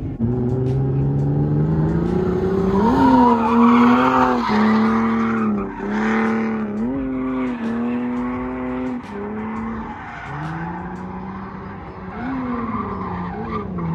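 Car engine revving hard while its tires squeal and skid through a drift run. The revs climb over the first few seconds, then are held high with several brief dips and recoveries.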